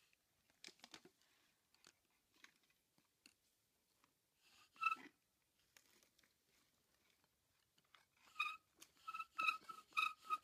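Bow drill spindle squeaking as the bow is stroked back and forth, a piece of ice serving as the bearing block. After faint scattered clicks and a single squeak, the squeaks come in a steady run of about three a second from around eight seconds in.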